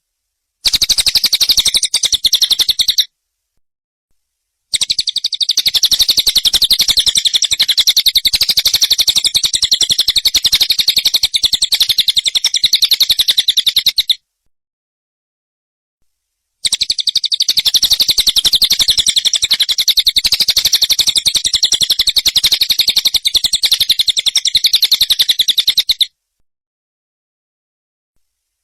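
Songbird masteran recording: a harsh, very fast rattling trill of rapidly repeated high notes. It plays in three edited runs, a short one and then two long ones, each cut off abruptly into dead silence.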